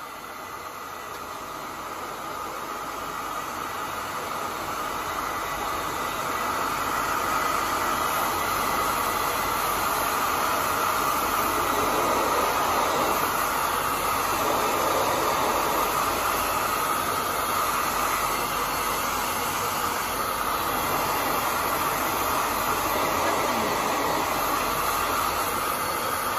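Hand-held hair dryer running steadily, blowing hot air onto a split air conditioner's iced-up evaporator coil to melt the ice. The rush of air grows louder over the first several seconds, then holds steady.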